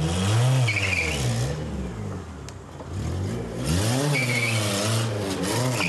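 A VW Jetta Mk2 sedan's engine revs hard twice as the car pulls away, rising then falling each time, with a short high squeal at each rev peak.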